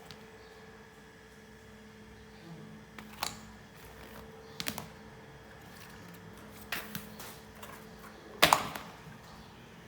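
Several separate light clicks and knocks, like small parts or tools being handled, the loudest one near the end, over a steady low electrical hum.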